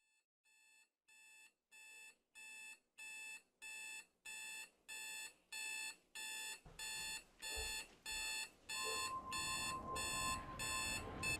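Smartphone alarm ringing: a repeating electronic chime, about one and a half pulses a second, growing steadily louder, cut off near the end. A few soft thumps in the second half.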